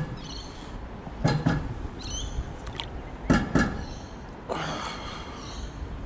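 Knocks and rustling of handling and movement as a caught Australian bass is carried down to the water's edge and lowered in, with a short burst of water disturbance near the end. A few faint high bird chirps come and go in the background.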